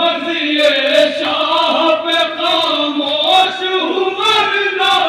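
A group of men chanting a noha together in a held, drawn-out melody, cut through by sharp slaps that come roughly every half second.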